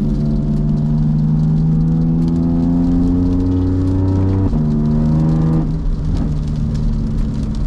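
BMW F80 M3's S55 twin-turbo inline-six heard from inside the cabin, pulling with its pitch slowly rising, then dropping suddenly about four and a half seconds in and easing off near six seconds. It runs through catless downpipes, a resonator delete and a rear Eisenmann exhaust, a tone the owner says has no soul.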